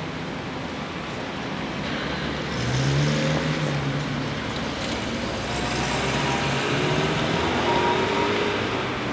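City street traffic noise: a steady rush of passing vehicles, getting louder about two seconds in, with a vehicle's engine humming by about three seconds in and again in the middle.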